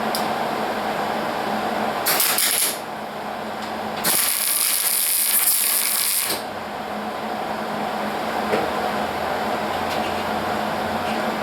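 Hobart Handler 140 MIG welder, running 75/25 argon-CO2 shielding gas, striking an arc to tack-weld sheet metal. A short burst of arc noise comes about two seconds in, then a longer steady run of about two seconds from about four seconds in.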